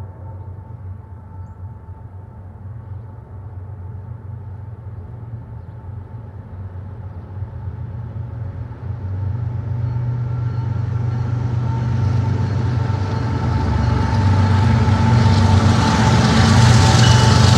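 CSX diesel-electric freight locomotives approaching at the head of a manifest train, their low engine rumble growing steadily louder. A hiss rises over the rumble in the last few seconds as the lead locomotive comes alongside.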